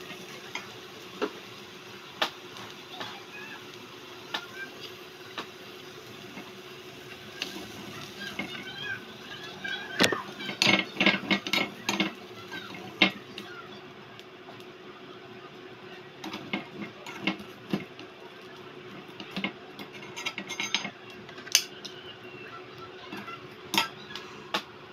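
Tiny metal spatula scraping and clinking against a miniature metal wok as scrambled egg is stirred and scooped out, in scattered strokes with a busier run about ten seconds in, over a faint steady hum.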